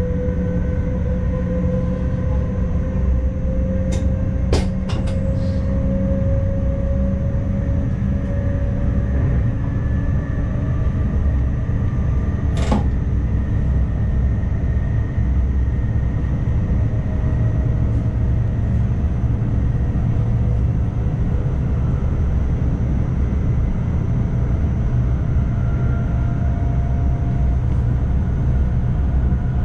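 NS ICMm electric multiple unit running along the track, heard in the driver's cab: a steady low rumble of wheels on rail, with a faint whine from the drive that slowly rises in pitch. A few sharp clicks come several seconds in, and another about midway.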